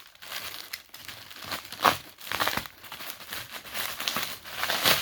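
Plastic bubble wrap being handled and pulled from packaging, crinkling and rustling in irregular bursts.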